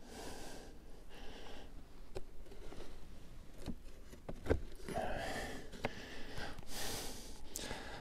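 A man breathing hard in the cold, with a few scattered knocks and crunches as the snow-covered wooden outer cover is lowered back onto the beehive.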